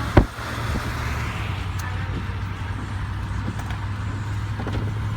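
A car's engine running with a steady low rumble, heard from inside the moving car, with one sharp knock just after the start.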